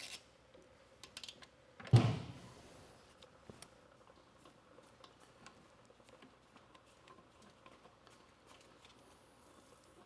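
Hand tools clicking lightly against metal as Allen screws are worked loose, with one loud knock about two seconds in.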